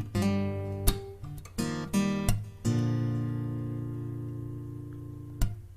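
Acoustic guitar strumming chords: a quick run of strokes, then one chord left to ring out for a few seconds, and another strum near the end.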